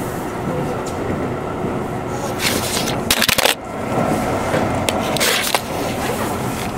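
Electric train heard from inside the car: steady rumble of the running train, with a short burst of hiss about halfway through and another near the end.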